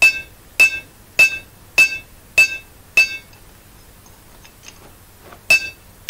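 Hand hammer striking the cold wrought iron dagger blade edge on an anvil to hammer-harden it. Even blows, a little under two a second, each with a bright ringing clang: six in a row, a pause of about two seconds, then the blows resume near the end.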